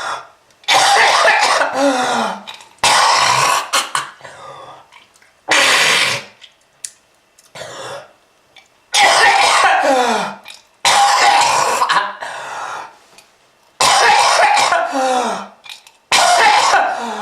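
A person coughing hard in repeated fits, a smoker's cough: about eight harsh bouts of a second or two each, with short gaps between them, several sliding down in pitch as they end.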